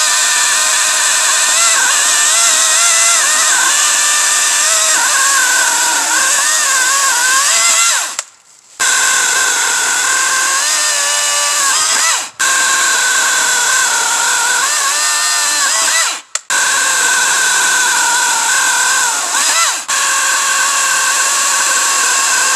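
WEN 16-inch cordless electric chainsaw cutting through a log. The motor whines steadily and its pitch wavers and dips as the chain bites into the wood. The sound stops for about half a second roughly eight seconds in and drops out briefly a few more times later.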